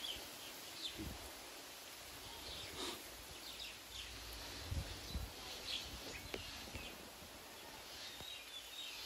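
Rural outdoor background: a steady faint hiss with scattered short bird chirps throughout, and a few soft low knocks or rustles, about a second in and again around the middle.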